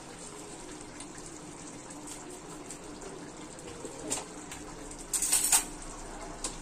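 Curry simmering in a steel kadhai on a gas burner, a steady hiss. A brief run of sharp clicks and clatter comes about five seconds in.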